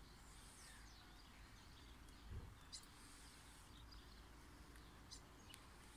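Near silence: faint outdoor ambience with a steady low hum and a few faint bird chirps.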